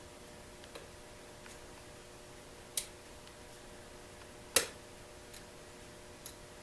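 Small metallic clicks of a lock pick and tension wrench working the pins of a mortise lock cylinder: a few faint ticks and two sharper clicks, about three and four and a half seconds in.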